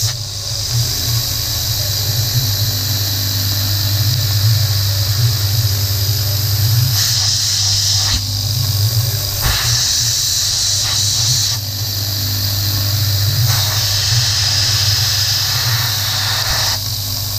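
PM30-MV milling machine spindle running with an end mill cutting into a metal spindle cap. There is a steady low motor hum, with the hiss of coolant spray and a high-pitched cutting sound that swells in several stretches as the tool engages.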